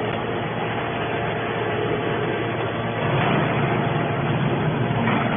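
Hydraulic scrap metal baler running: a steady machine noise from its hydraulic power pack and pump as a cylinder moves the press lid, swelling slightly about three seconds in.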